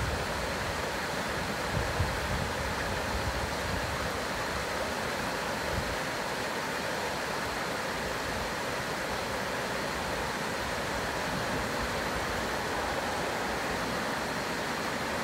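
Shallow rocky stream running over small cascades: a steady rush of water. A few low rumbles of wind on the microphone come in the first half.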